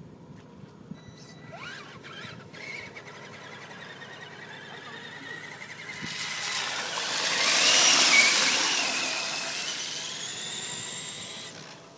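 Traxxas Summit electric RC monster truck driving close by, its motor and gears whining with a pitch that rises and falls as it speeds up and slows. It swells from about six seconds in, is loudest around eight seconds, then fades away.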